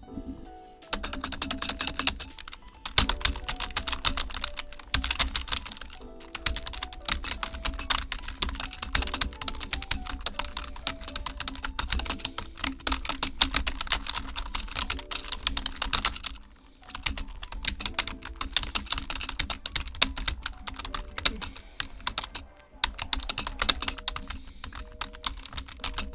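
Fast, continuous typing on a cheap membrane computer keyboard, dense keystroke clicks with a few short pauses. Background music plays beneath.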